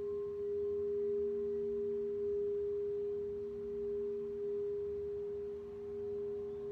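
Crystal singing bowls sustaining steady pure tones, a strong higher note over a weaker lower one, their loudness swelling and ebbing slowly as a mallet is run around a bowl's rim.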